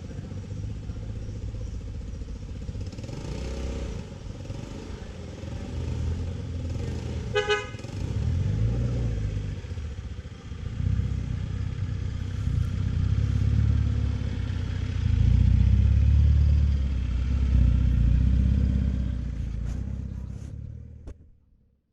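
Motor vehicle engine running and moving, its low rumble rising and falling, with a short horn toot about seven seconds in; the sound cuts off suddenly near the end.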